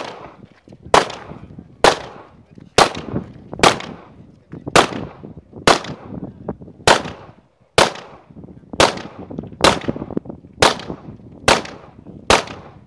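Pistol fired at a steady pace, about one shot a second, a dozen or more shots in all, each with a brief echo.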